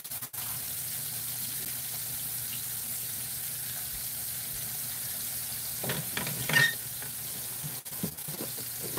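Flour-dredged chicken fried steaks frying in hot shortening in a cast iron skillet, a steady sizzle. A few brief knocks about six seconds in.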